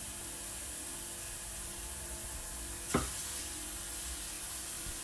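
Steady background hiss with a faint low hum, and one short soft tap about three seconds in as the filo samosa is handled on the counter.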